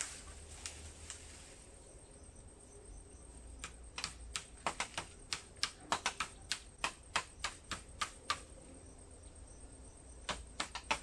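A blade hacking at the base of a green bamboo stem: a run of sharp knocks, about three a second, starting about a third of the way in. They stop briefly and start again near the end.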